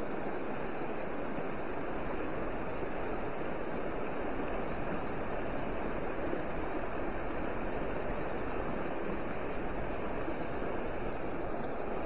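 Shallow, rocky mountain trout stream running over rocks: a steady, even rush of water.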